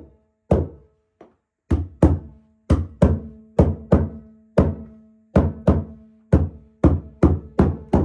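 Rubber mallet striking a stair bolster to drive a carpet runner into the gripper at the back of a stair tread: a quick, uneven run of about twenty knocks, two to three a second, each with a short ring.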